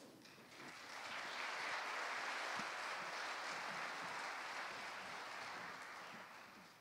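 Congregation applauding after a song, swelling in over the first second or so and gradually dying away near the end.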